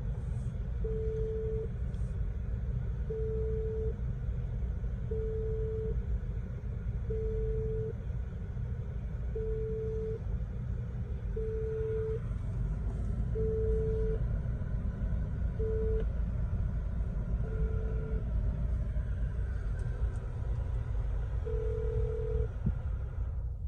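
Ringback tone of the Nissan Xterra's emergency call button ringing out: a short low beep about every two seconds, while the call waits to be answered. Under it runs the steady low rumble of the idling engine.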